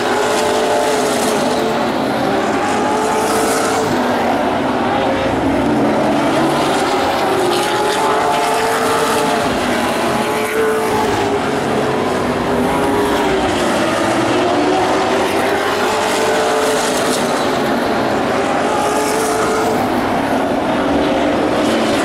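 Vintage modified race cars running laps on an oval track, their engines rising and falling in pitch every few seconds as they go on and off the throttle.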